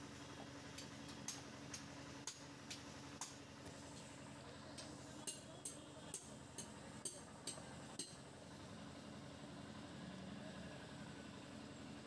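Light, sharp clicks, about two a second, in two runs with a pause of a second or so between them, over a faint steady background hum.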